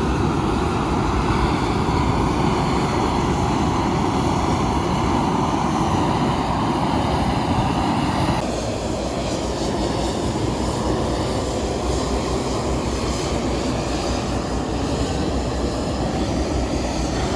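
Dash 8-400 turboprop engine running, a loud, steady roar with propeller noise. About halfway through the sound abruptly turns duller and slightly quieter.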